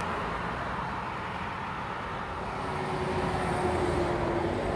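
Road traffic noise: a steady hum of vehicles passing on a multi-lane road, swelling slightly as one goes by about three and a half seconds in.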